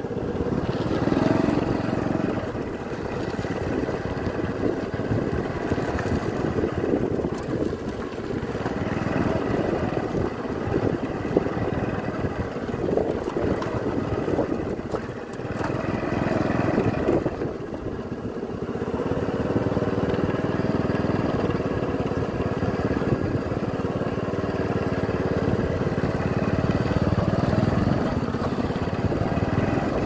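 Small motorcycle engine running steadily while riding along a rough dirt track.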